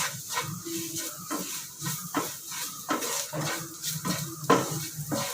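A spoon scraping and knocking against a pan in irregular strokes, about two a second, as onions and spice powders are stirred while frying, with a faint sizzle underneath. The masala is being fried off in oil until its raw smell goes.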